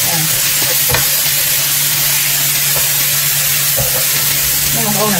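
Minced pork and mushrooms sizzling in a hot nonstick frying pan while a spatula stirs and scrapes them, with one sharp tap of the spatula about a second in.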